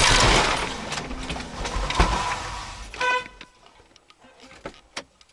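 Head-on collision of two cars: a sudden loud crash of metal and plastic, a second sharp impact about two seconds in, then a short car-horn blast about three seconds in, followed by a few faint clicks.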